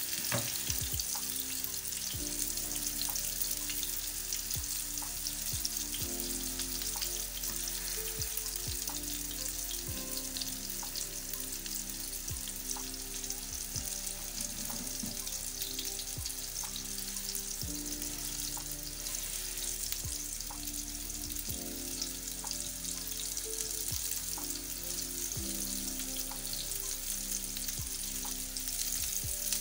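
Ground-meat kebab patties shallow-frying in hot oil in a non-stick pan: a steady sizzle.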